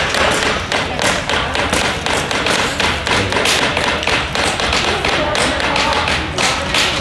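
Small hammer tapping nails into a thin wooden kit: many light, quick strikes on wood, one after another.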